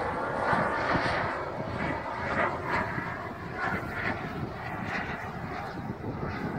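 Radio-controlled model jet in flight, its engine noise receding and slowly fading after a loud pass overhead.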